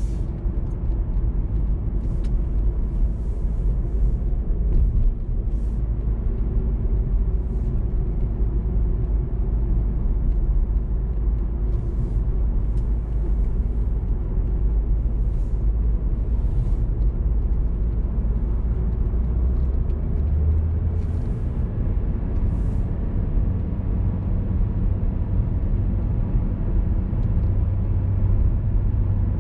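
A car being driven, with a steady low rumble of engine and road noise. Its lowest hum steps up in pitch about twenty seconds in.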